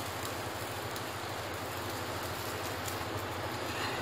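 Steady, even hiss of a chapati cooking on a hot dry tawa over a gas burner.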